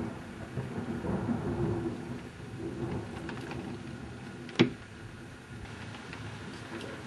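Low, distant thunder rumbling during an electrical storm, with one sharp click about four and a half seconds in.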